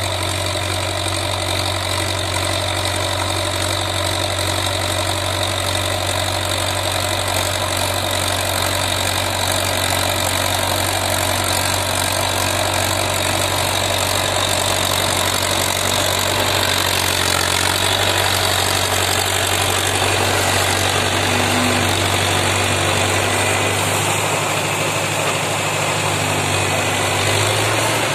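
Mahindra Yuvo tractor's diesel engine running steadily under load, pulling a rotavator through hard soil; the sound shifts somewhat as the tractor comes close near the end.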